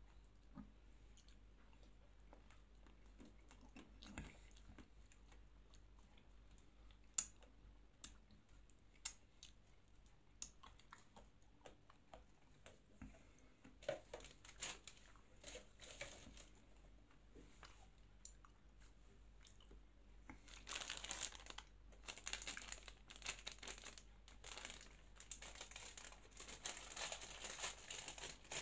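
Soft chewing with scattered sharp crunches of a Magnum ice cream bar's chocolate shell. About two-thirds of the way in, a Magnum bar's plastic wrapper starts crinkling and tearing as it is opened.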